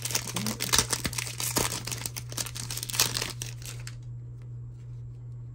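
Foil wrapper of a Panini Select football card pack being torn open and crinkled, a dense crackling that stops about four seconds in, over a steady low hum.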